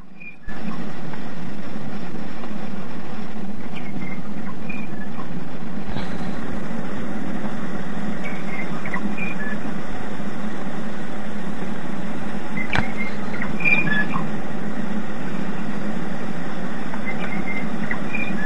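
Shortwave radio reception of Radio New Zealand International's interval signal on 11780 kHz. Short, faint high chirping notes come every few seconds through loud, steady static and hiss with a low hum, cutting in about half a second in.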